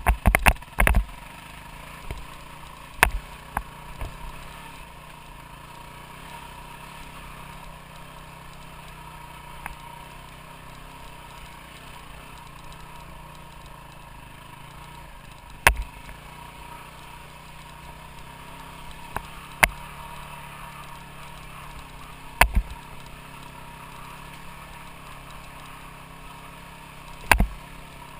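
Off-road motorcycle engine running at steady, even revs while riding a trail, with a handful of sharp knocks and clatters every few seconds.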